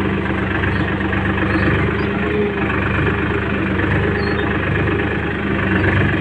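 Farm tractor's diesel engine running steadily as the tractor is driven along.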